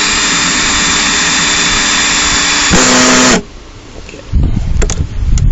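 18-volt cordless drill driving a 2.5–3 inch hole saw through a plastic barrel lid, a steady loud grinding whine of the saw cutting. About three seconds in it changes to a plain motor whine for a moment, then the drill stops. Handling noise and a few clicks follow.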